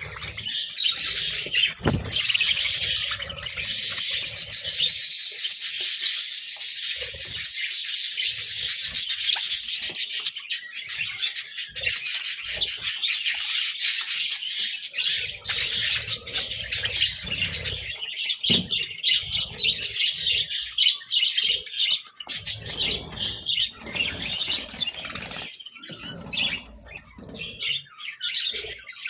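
A flock of budgerigars chattering and chirping continuously in fast, high warbles, with occasional low rustles and thuds from birds moving about.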